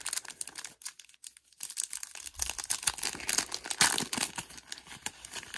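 Clear plastic wrapper of a pack of trading cards crinkling and crackling as it is handled and pulled at, with a brief lull about a second in.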